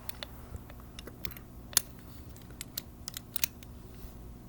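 Light, irregular clicks and taps of handling, about a dozen scattered through, the sharpest about two seconds in.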